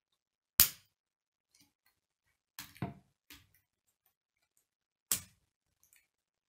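Plastic K'nex rods and connectors clicking and snapping together as they are fitted and handled: one sharp click about half a second in, a short cluster of clicks and rattles around three seconds in, and another sharp click about five seconds in.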